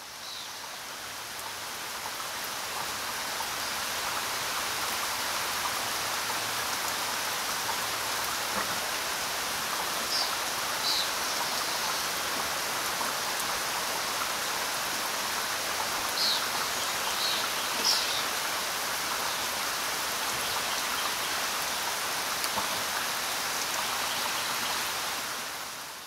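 Steady rushing of a waterfall, fading in at the start and fading out at the end, with a few short high chirps about halfway through.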